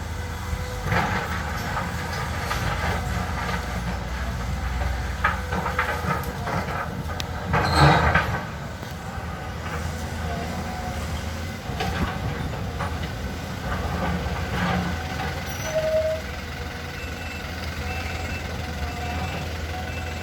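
Caterpillar excavator working: its diesel engine runs steadily underneath scattered metal clanks and short squeaks from the machine, with one loud clank about eight seconds in.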